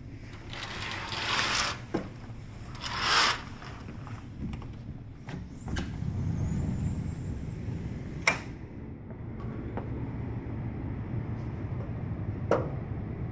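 Hotel room curtain swished aside in two pulls, then a sliding glass balcony door rolled open with a thin high squeal and a sharp click. A steady low outdoor rumble follows.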